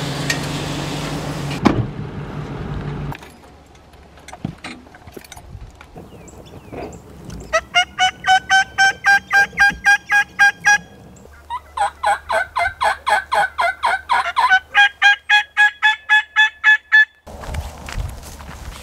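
Turkey yelping: two long runs of evenly spaced yelps, about four a second, each run rising slightly in pitch. Before them, a steady low hum stops about three seconds in.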